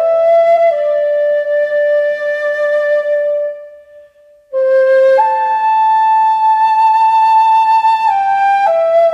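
Flute music playing slow, long held notes that step from pitch to pitch, with a short break about four seconds in.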